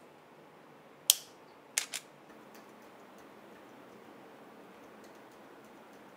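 Camera shutter clicking as stop-motion frames are captured: one sharp click about a second in, then a quick double click just under a second later.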